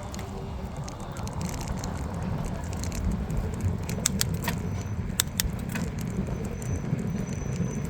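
Wind rumbling on the microphone and the rattle of a bicycle being ridden, with a few sharp clicks a little past the middle.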